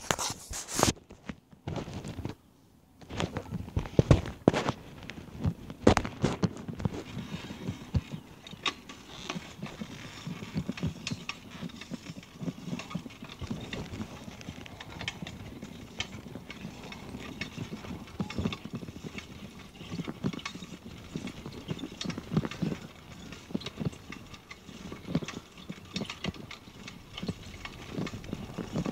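Bicycle ride on a rough rural road: irregular rattles and knocks from the bike and the hand-held phone over a steady riding noise, with a few louder bumps in the first several seconds.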